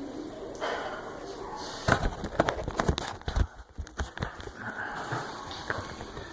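A quick run of sharp knocks and clicks starting about two seconds in and lasting about two seconds.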